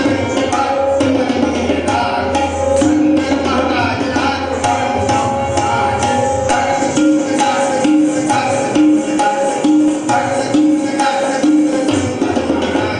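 Tabla playing a fast Kathak rhythm with many crisp strokes, over a short melodic phrase that repeats over and over as a lehra.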